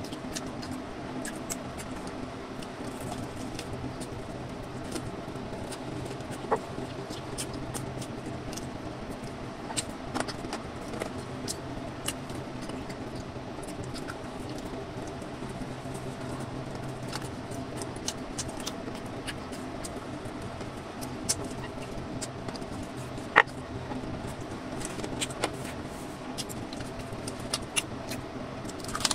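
A person chewing and eating a fried chicken burger: scattered soft mouth clicks and smacks, with a few sharper clicks, over a steady background hum.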